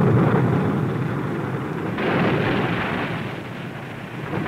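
Rumbling rush of churning sea water as a submarine's bow breaks the surface, with a sudden sharper hissing splash coming in about two seconds in.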